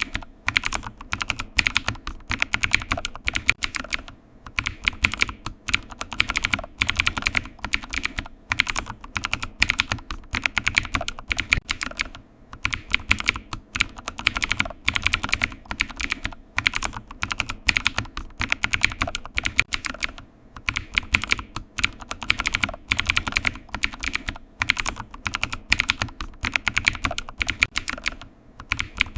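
Computer keyboard typing: a fast, irregular patter of keystrokes in runs, broken by short pauses.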